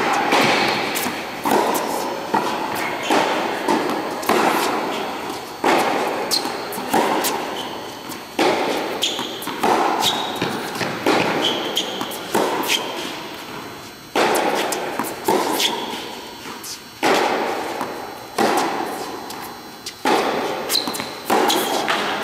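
Tennis rally: a ball struck hard by rackets and bouncing on a hard court, a sharp pop about every second or so, each one ringing on in the echo of a large indoor tennis hall.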